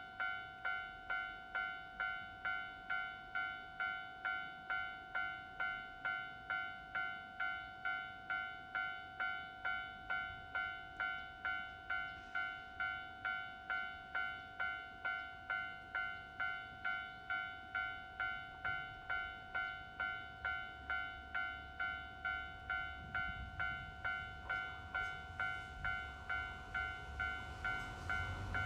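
Japanese railway level-crossing alarm ringing: an electronic bell tone repeating evenly, about one and a half strikes a second. Over the last several seconds the low rumble of an approaching train rises beneath it.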